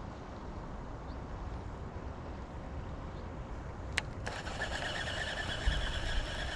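A sharp click, then a fishing reel cranked to wind in line, giving a steady whir for about three seconds, over a low steady rumble.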